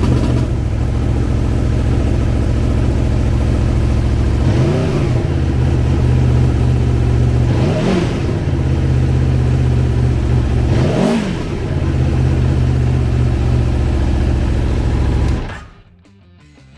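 2020 Aprilia Tuono V4 1100 RR's 1077 cc V4 engine idling, blipped three times with each rev rising and falling back to idle. The sound stops suddenly near the end.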